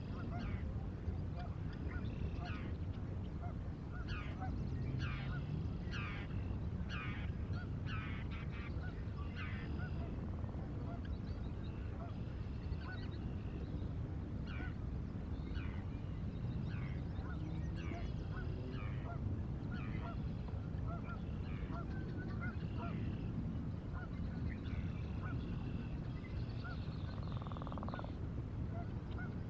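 Many birds calling off-screen, short repeated calls coming in quick runs about 4 to 10 seconds in and more scattered after, over a steady low rumble.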